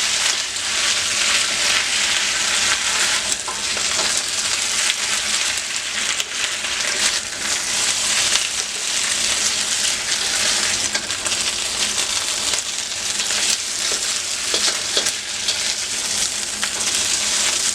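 Beef sizzling steadily as it browns in hot oil in a pan, with occasional light clicks.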